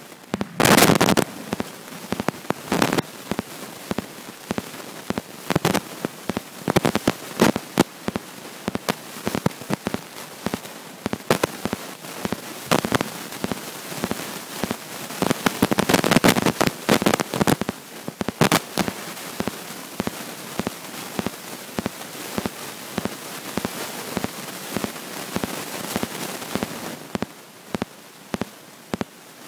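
Underwater crackling and popping picked up by a submerged iPhone's microphone: irregular sharp clicks over a steady hiss, with denser clusters about a second in and again around the middle.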